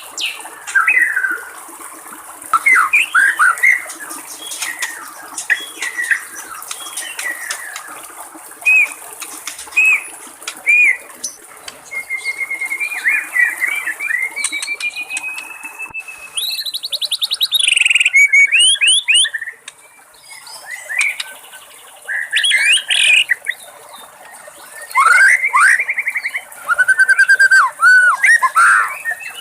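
White-rumped shama singing a long, varied song of clear whistles, rising and falling slurred notes and rapid trills, with loud bursts of phrases throughout. A faint murmur of babbling water sits beneath the song for about the first half.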